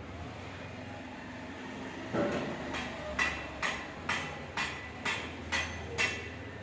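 A run of about nine sharp knocks, roughly two a second, starting about two seconds in, over a steady low hum.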